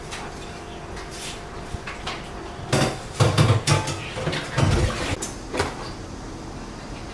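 Dishes and cutlery clattering as plates are gathered up: a few light knocks, then a flurry of clinks and heavier knocks from about three seconds in to nearly six.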